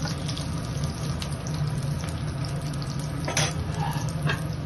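A silicone spatula stirring thick masala gravy in a non-stick pan, over a steady hiss of cooking, with a couple of sharper scrapes against the pan near the end. The stirring keeps the thickening gravy from sticking to the bottom.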